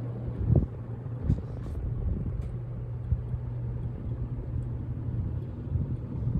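Home Depot Trice ceiling fan running: a steady low motor hum under an uneven low rumble of moving air, with a couple of soft thumps in the first second and a half.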